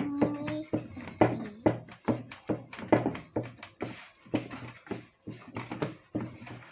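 Hands kneading chapati dough in a plastic basin: dull thumps and squishes about twice a second as the dough is pressed and folded.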